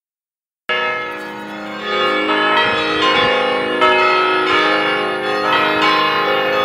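Mission San Juan Capistrano's church bells ringing: several bells struck one after another, each strike ringing on under the next. The ringing begins abruptly under a second in.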